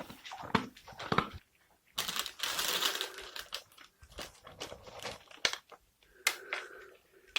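Scattered light clicks and taps, with about a second and a half of rustling about two seconds in: pets at play with a toy.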